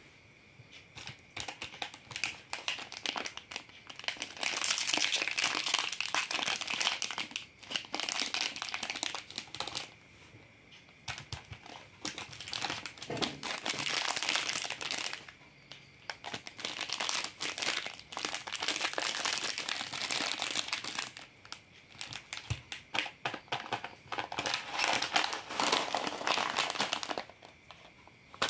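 Plastic snack wrappers crinkling as they are handled, in repeated bouts of a few seconds each with short pauses between.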